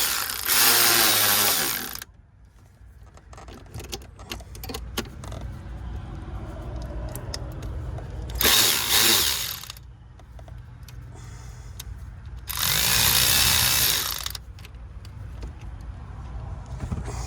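A handheld power tool run in three short bursts of one to two seconds each: one at the start, one about eight seconds in and one about thirteen seconds in, while the coil and spark plug are taken out of a Ford 4.6 L V8's cylinder. A steady low hum runs underneath.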